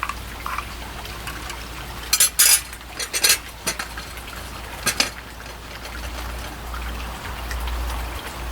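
A few short, sharp clatters of small hard objects being handled, a cluster about two seconds in, another a second later and one near five seconds, over a steady low background noise.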